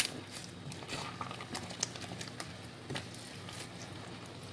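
Wooden spatula stirring leafy greens through a pot of mung bean stew, with a few light knocks of the spatula against the stainless steel pot.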